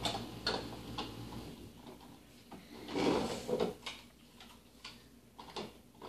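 Plastic toy dollhouse pieces being handled: a string of light clicks and knocks as small pieces are set down and moved, with a louder scraping rustle about three seconds in.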